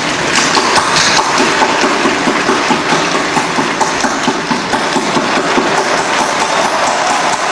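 A large audience applauding: a dense, steady clatter of many hands clapping.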